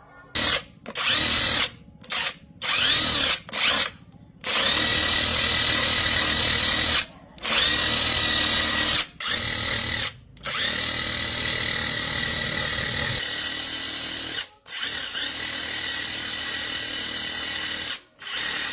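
Handheld electric power tool run in bursts, its motor whine spinning up at each start and cutting off sharply. There are several short pulls in the first few seconds, then longer runs of a few seconds each.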